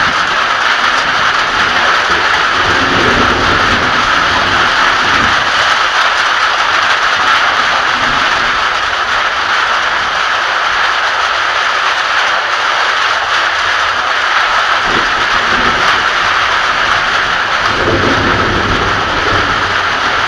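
Heavy rain pouring steadily during a thunderstorm, with low rumbles of thunder swelling about three seconds in and again near the end.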